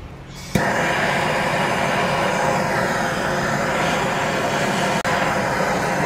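Handheld gas torch burning with a steady hiss as it heats an aluminum motorcycle wheel rim. The hiss starts abruptly about half a second in and breaks off for a moment about five seconds in.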